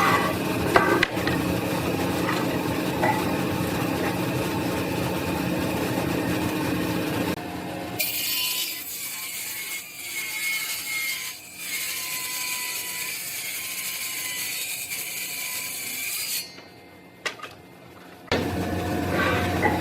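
Woodshop power tools working wood: a machine runs steadily for the first several seconds, then gives way to a hissy cutting or sanding sound, with a short pause before a machine starts again near the end.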